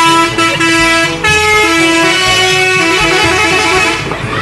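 Multi-tone musical vehicle horn sounding a tune of held notes that step from pitch to pitch, loud throughout, fading out near the end.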